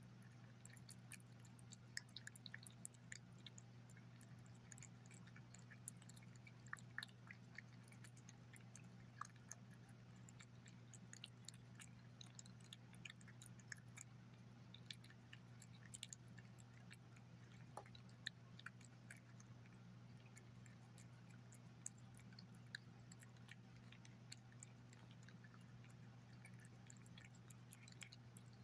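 A cat chewing and licking soft chunks of roasted chicken from a bowl: faint, irregular wet clicks and smacks, over a steady low hum.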